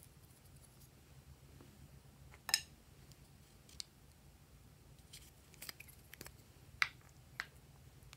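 Small plastic toy bottles being handled: a series of sharp plastic clicks and taps, about seven in all, the loudest about two and a half seconds in and another near seven seconds, over a faint steady low hum.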